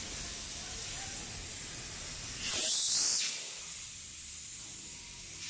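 Compressed air hissing from a hose nozzle, with one louder blast lasting under a second near the middle: air blown into a plastic cube mould to push out a concrete test cube.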